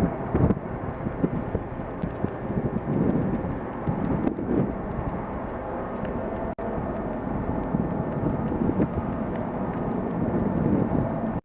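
Airbus A320 jet engines rumbling steadily as the airliner takes off and climbs away, with a brief dropout about six and a half seconds in.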